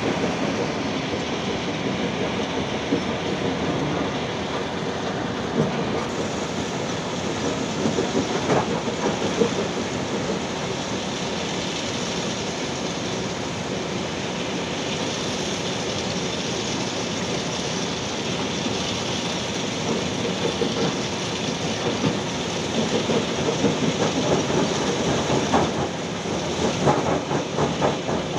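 Diesel heavy machinery running with a steady rattling clatter: first a Hitachi Zaxis 210F excavator, then a dump truck tipping a load of gravel from its raised bed, stones clattering as they slide out, more unevenly near the end.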